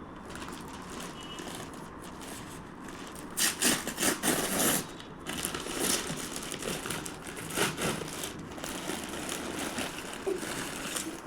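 Plastic packaging crinkling and rustling as it is handled. The loudest stretch is a cluster of crackles about three and a half seconds in, followed by lighter rustles.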